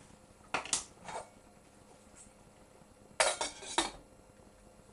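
Kitchen pots, pans and metal utensils clattering: two short bursts of clinks and knocks, one about half a second in and one about three seconds in.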